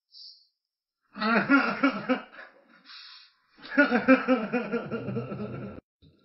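A person laughing in two bouts, the first starting about a second in and the second about three and a half seconds in.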